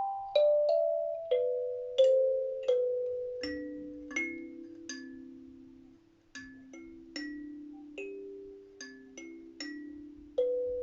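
Kalimba (thumb piano) played slowly, single plucked notes ringing and fading. The notes step down in pitch over the first two seconds, then fall into a sparse low melody that almost dies away about six seconds in before picking up again.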